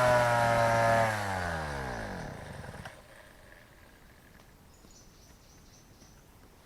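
Small brush cutter engine running at speed, then cut off about a second in, its pitch falling steadily as it spins down to a stop about three seconds in. Faint outdoor background with a few high chirps follows.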